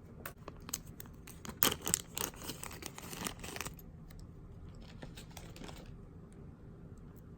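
Loose costume jewelry and beads being handled and sorted, giving sharp small clicks and rattles, with a rustle of a plastic bag in the first half; the sounds thin out to a few scattered clicks after about four seconds.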